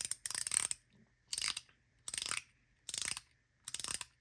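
Ratchet fidget toy with spring-loaded balls being worked by hand: quick runs of sharp ratcheting clicks, five short bursts a little under a second apart.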